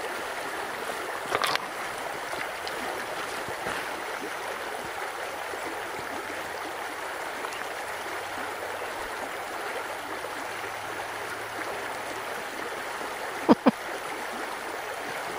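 Soda Butte Creek running steadily over a gravel bed. About a second and a half in there is a brief knock. Near the end there is a loud double sound, two short sounds falling in pitch, the loudest thing heard.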